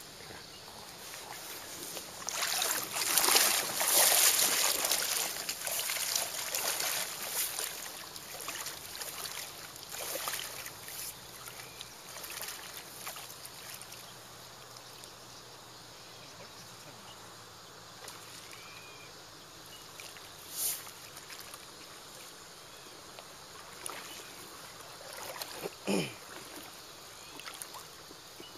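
River water splashing and trickling, loudest from about two to eight seconds in, then fainter, with a few short sharp splashes or knocks later on.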